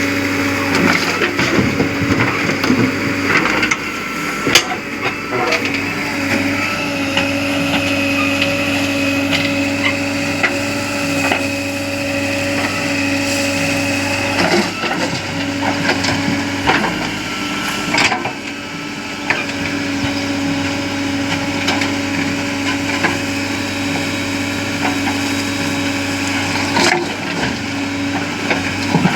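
Diesel engine of a JCB 3DX backhoe loader running steadily at a constant pitch, with irregular cracks, knocks and scraping of material being crushed and loaded. Sharper knocks come about 4, 14, 18 and 27 seconds in.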